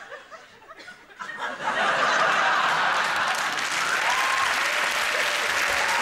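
Studio audience applause breaking out suddenly about a second and a half in and holding steady, after a moment of faint talk.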